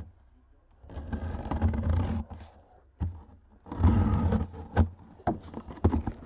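A cardboard box being opened by hand: two stretches of scraping and rustling, about a second in and again near four seconds, then a few sharp knocks as the lid and flaps are handled.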